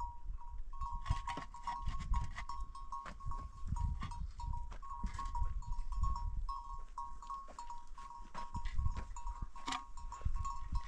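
Light knocks and scrapes of concrete blocks and mortar as a block wall is being laid, over a low rumble of wind, with a steady chirping two-note tone going on in the background.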